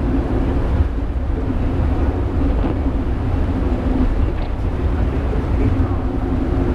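Penang Hill funicular railway car climbing the hill, heard from the cab: a steady low rumble of the wheels running on the track, with a steady hum above it.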